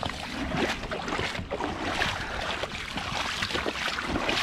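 Splashing and sloshing in shallow river water at the bank, in a run of irregular short splashes, with wind noise on the microphone.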